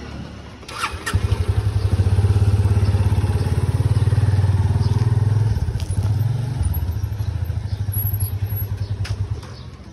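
Benelli TNT 300 parallel-twin motorcycle running through a loud exhaust, a steady rapid exhaust beat that comes in about a second in, drops a little past halfway and fades near the end.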